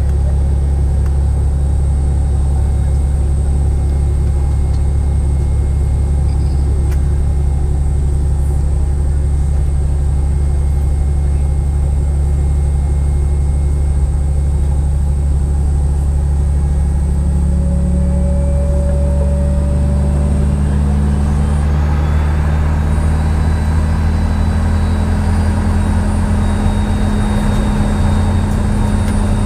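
Boeing 717's rear-mounted Rolls-Royce BR715 turbofans heard inside the cabin at taxi, from a seat right beside them: a steady low drone with a faint whine. A little past halfway the whine rises in pitch as the engines speed up.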